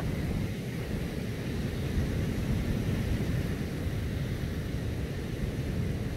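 Wind buffeting the microphone as a steady low rumble, with the wash of surf behind it.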